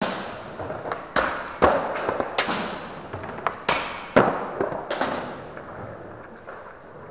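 Skateboard sounds: several sharp clacks and thuds of the board popping and the trucks and wheels hitting a metal handrail and the ground, between stretches of wheels rolling, each hit echoing in a large hall.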